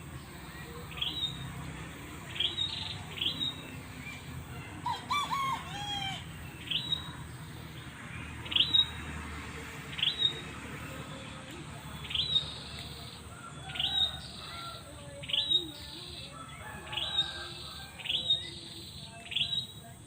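Songbird repeating a short, sharp rising chirp every second or two. A second bird calls briefly with a few lower, falling notes about five seconds in.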